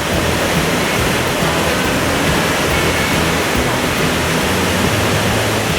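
Waterfall of Dicks Creek Falls rushing steadily, a loud, even roar of falling water.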